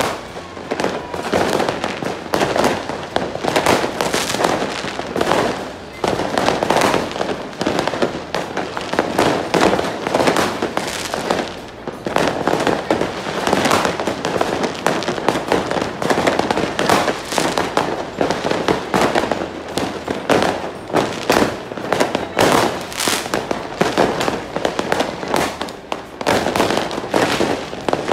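New Year's Eve fireworks and firecrackers going off in a dense barrage of overlapping bangs and crackles that barely lets up.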